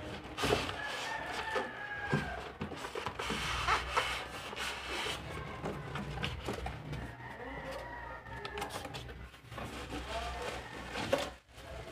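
Packaging of an electric grill being handled and unpacked: rustling with scattered knocks and clicks. A couple of drawn-out pitched calls sound in the background, about a second in and again near eight seconds.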